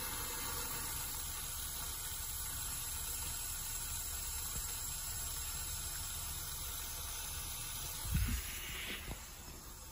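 Steady hiss of water flowing through the clear supply tubing and rotameter flowmeter, with a short low bump about 8 seconds in, after which the hiss drops.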